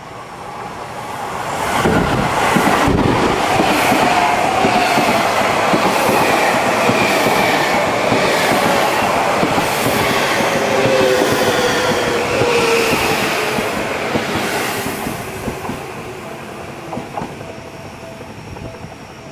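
Seibu 6000-series electric train arriving and braking. Its traction motors whine in several tones that fall in pitch as it slows, over wheel clacks on the rail joints. It fades to a low rumble as it comes to a stop near the end.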